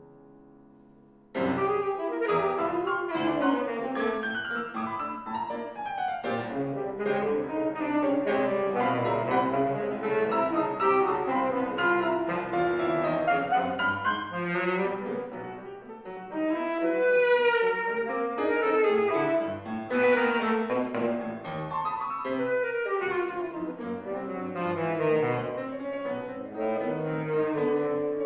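Tenor saxophone playing a concert solo with grand piano accompaniment. After a soft, fading chord, both come in loud about a second in, and the saxophone's held notes waver with vibrato.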